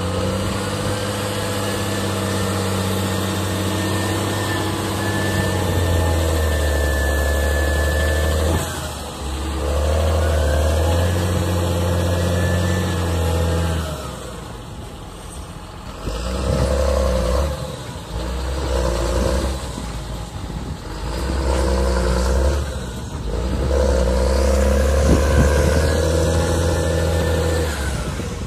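John Deere tractor's diesel engine revving hard under load as it tries to pull a loaded trailer out of deep mud, in long surges that drop back several times before building again.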